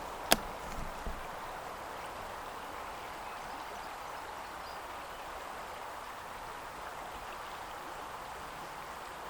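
Steady rush of flowing river water, with one sharp click just after the start and two faint knocks soon after.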